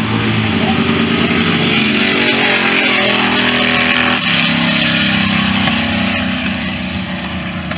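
Two Ford FE V8 drag cars launching and running at full throttle down the strip. The engine note rises as they pull away and fades near the end as they get farther off.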